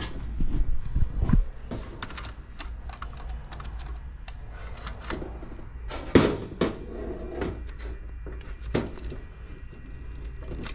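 Scattered clicks, taps and knocks of wires and hand tools being handled on a sheet-metal workbench, with a few heavier bumps near the start and one louder knock about six seconds in.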